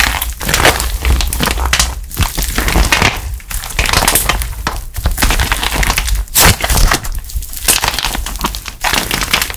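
Hands squeezing and kneading a lump of soft clay packed with dried plaster clay pieces: dense crackling and crunching as the dry bits break, coming in repeated squeezes with short lulls between them.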